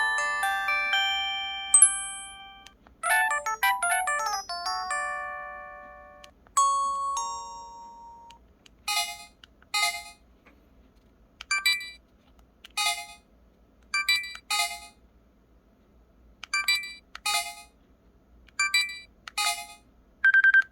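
Pantech Sky IM-S480 mobile phone playing its text-message alert tones through its small speaker. A melodic chime run comes first, then paired bright chimes repeat about once a second, with short single-pitch beeps near the end.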